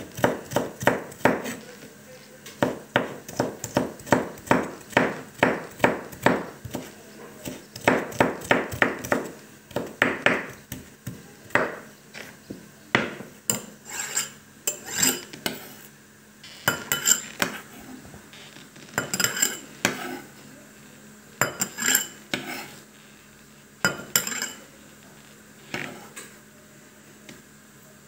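Chef's knife finely chopping red bell pepper on a wooden cutting board: a fast run of knocks, about three a second. About halfway through the chopping gives way to sparser, sharper knocks and scrapes as the knife sweeps the minced pepper into a glass bowl.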